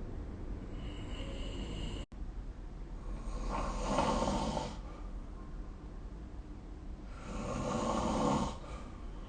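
A sleeping person snoring: two snores about four seconds apart, each lasting a second or so, over a faint steady hiss. There is a momentary dropout about two seconds in.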